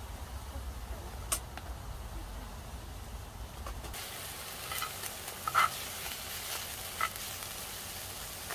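Slices of Hanwoo striploin sizzling on a grill over charcoal. The sizzle starts about four seconds in, with a few sharp clicks.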